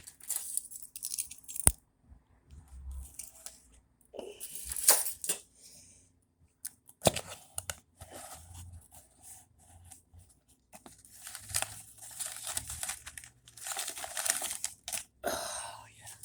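A mailed package being torn open by hand and its wrapping crinkled, in repeated bursts with a couple of sharp snaps.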